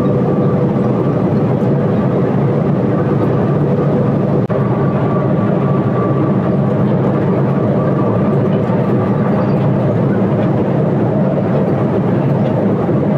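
Steady cabin drone of an intercity bus cruising at highway speed: engine and tyre-on-road noise, with a faint steady whine above it.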